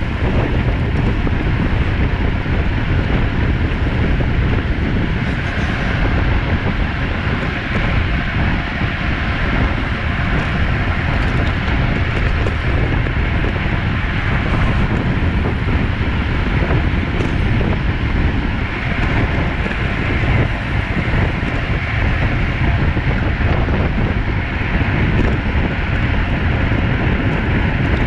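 Wind rushing over a bike-mounted camera's microphone at road-racing speed: a loud, steady rush that barely changes.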